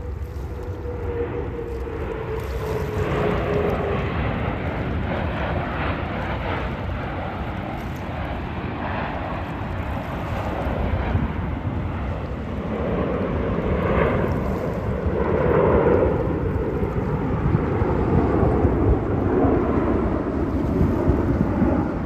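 Airplane engine noise from aircraft flying at an airshow. A tone falls slowly in pitch over the first few seconds, and the engine rush swells louder in the middle and again later.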